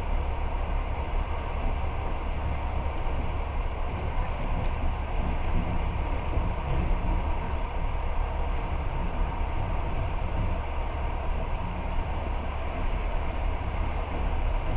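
Passenger train running at speed, a steady rumble with a faint steady whine over it, heard from inside the carriage.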